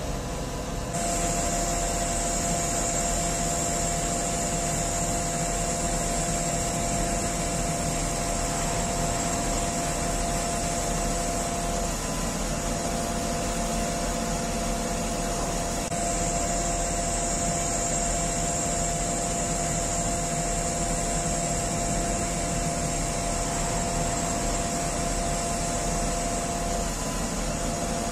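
XCMG QY25K5A truck crane running: a steady machine drone with a constant whine, unchanging throughout.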